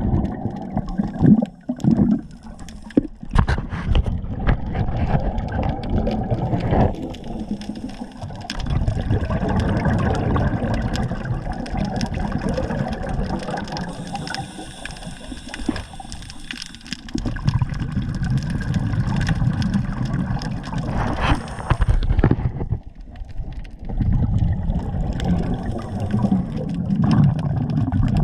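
Water sloshing and gurgling, with an uneven level that rises and falls and scattered clicks.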